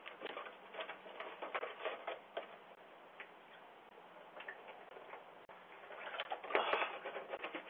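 Quick footsteps, about three a second for the first two and a half seconds, then a louder cluster of taps and scuffs near the end, heard through a doorbell camera's thin, tinny microphone.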